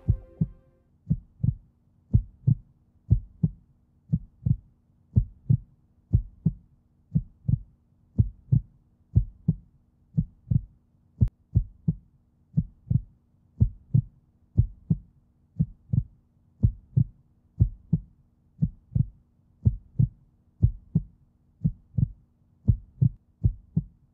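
A slow heartbeat: paired low thumps, lub-dub, repeating evenly about once a second, over a faint steady low hum.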